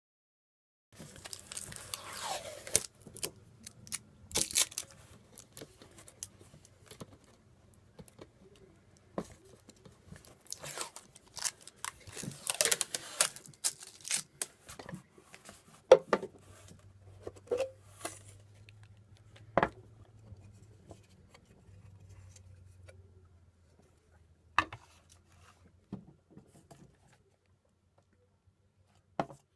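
Product packaging being torn and rustled, in two longer stretches, with scattered sharp clicks and knocks as a cylindrical cardboard box is handled and opened.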